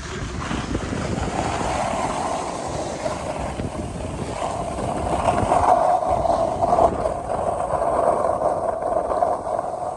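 Skis sliding and carving on groomed snow at speed, a continuous scraping hiss, with wind rushing over the phone's microphone and low rumble. It swells a little about halfway through.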